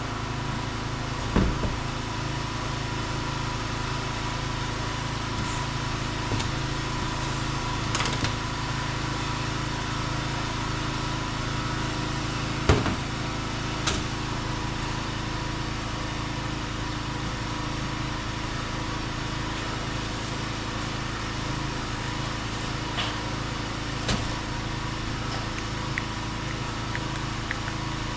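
A steady engine drone with a constant low hum and a thin whine above it, unchanging throughout, with a few faint clicks.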